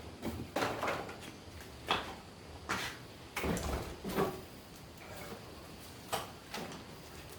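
Irregular clinks, knocks and short scrapes of hard workshop objects being handled, about one or two a second at uneven spacing.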